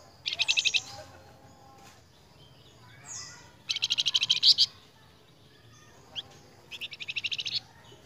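Flamboyan songbird singing three rapid trills of repeated high notes, each lasting under a second and spaced about three seconds apart, with a short downward-sweeping note before the second trill.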